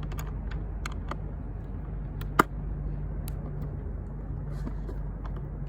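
Scattered metallic clicks and clinks of a skate tool on a skateboard truck's kingpin nut as the loose trucks are tightened, with one sharper clink about two and a half seconds in. A steady low hum lies underneath.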